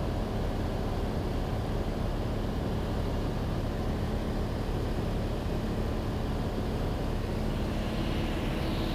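Cessna 182's piston engine and propeller droning steadily in flight, heard from inside the cabin.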